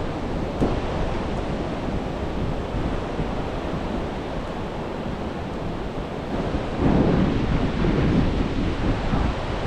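Ocean surf washing onto a beach, a steady rushing with wind buffeting the microphone; it swells louder about seven seconds in.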